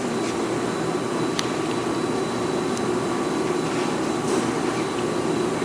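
Steady mechanical hum with a faint click about a second and a half in.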